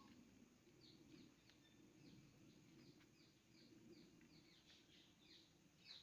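Near silence, with a bird chirping faintly in the background: a string of short, high, falling notes, about two or three a second.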